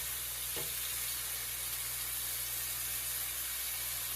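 Boneless chicken thighs frying in a hot pan, a steady sizzle.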